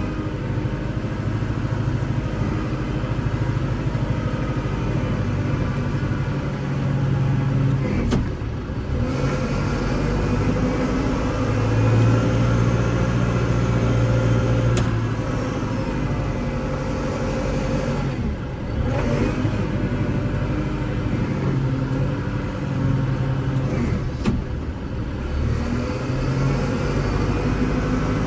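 Kubota L6060 tractor's diesel engine running under load while plowing, its pitch and level rising and falling as it works, loudest about halfway through.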